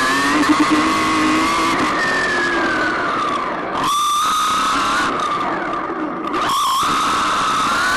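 RC car's motor and drivetrain whining under throttle, the pitch rising and falling as it speeds up and slows; it dips briefly twice, about four and six and a half seconds in, then winds back up.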